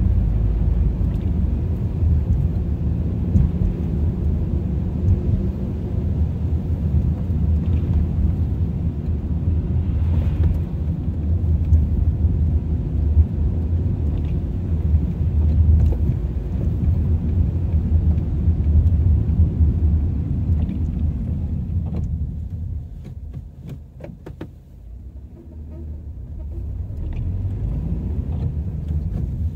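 Low road and engine rumble of a car being driven, heard from inside the cabin. It fades for a few seconds near the end, then builds back up.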